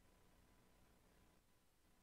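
Near silence: faint background hiss with a faint steady tone.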